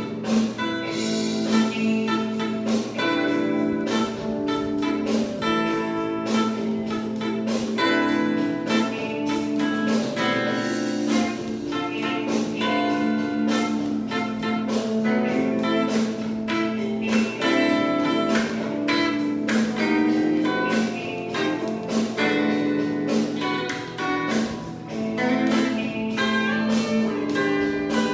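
Guitar improvising a blues, a stream of quick plucked single notes over a steady low tone underneath.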